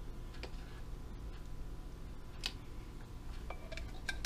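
A few faint, scattered clicks and taps of a spoon and a red plastic measuring cup against the yogurt tub and a glass mason jar as Greek yogurt is scooped in, over a low steady hum.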